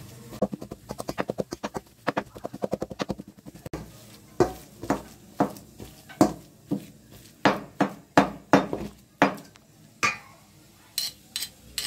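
Hand squishing and mashing sticky wood-apple pulp in a stainless steel bowl: a quick run of wet squelches, then slower squishes and knocks against the bowl about twice a second. A few sharp metal clinks near the end.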